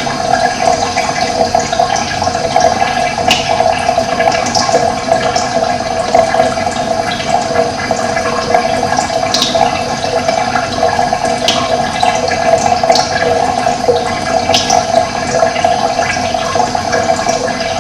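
Running water flowing steadily, with short high-pitched ticks scattered every second or two.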